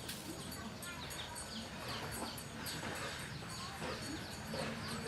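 Birds chirping: a quick run of short chirps that fall in pitch, several each second, over a steady low rumble.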